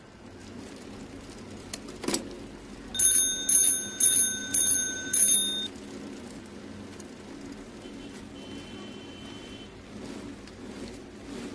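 Five quick bell-like rings about half a second apart, shortly after a single sharp click.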